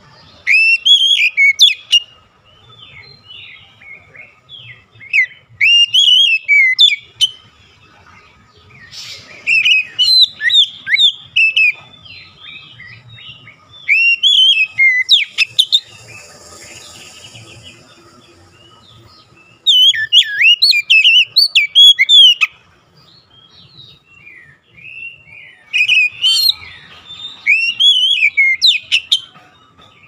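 Oriental magpie-robin singing: six loud bursts of rapid, varied whistled song a few seconds apart, with softer twittering notes between them.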